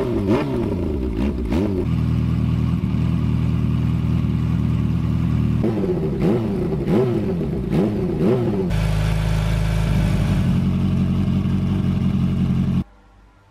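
Kawasaki Ninja H2's supercharged inline-four revved through a Vandemon titanium full-system exhaust with the baffle fitted. Quick throttle blips rise and fall in pitch about every half second, with stretches of steady idle between them. The sound cuts off abruptly shortly before the end.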